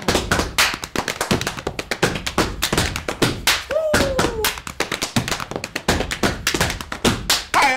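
Step dance by two steppers: a fast, uneven run of hard-soled shoe stomps on the stage floor, mixed with hand claps and hand slaps on the body.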